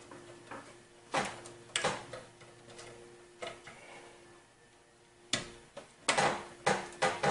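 Sharp plastic clicks and knocks of PCIe power cable plugs being handled and pushed into the power sockets of an EVGA GTX 970 SC graphics card. There are a few separate clicks, then a quick run of clicks in the last two seconds, over a faint steady hum.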